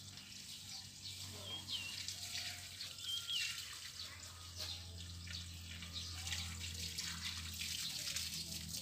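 Rustling and crackling of weeds and leafy stems being pulled up by hand, a scatter of short crackles, with a bird chirping about one and a half and three seconds in over a steady low hum.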